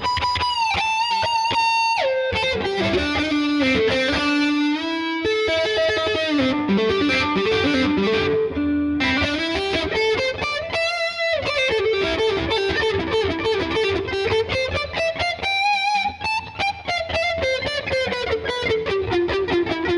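Gibson SG Standard electric guitar played through a distorted tone: a single-note lead line with held, bent notes and fast runs up and down the neck.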